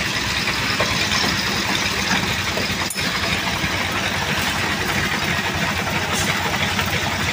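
Diesel engine of a site concrete mixer machine running steadily with a rapid, even low firing beat.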